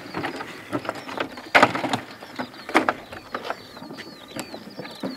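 Knocks and rustling from the damaged model jet being handled, loudest about a second and a half in. A bird chirps repeatedly in the background with short falling notes, mostly in the second half.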